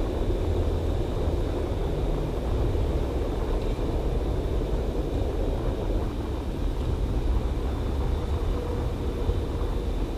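Steady low rumble with a faint, steady high-pitched whine above it.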